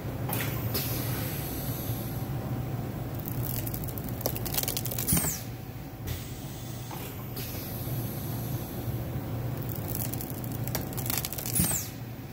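Automatic flatbed screen-printing press running through its print cycle: a steady motor hum under the hiss and scrape of the squeegee and flood bar sweeping ink across the screen. A sharp hiss and clack, with a brief falling whistle, ends each cycle, twice, about six seconds apart.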